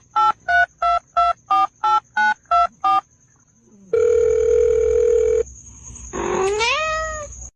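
Ten quick telephone keypad tones, about three a second, followed by a steady pitched tone lasting about a second and a half. Near the end comes a pitched call that rises and then levels off.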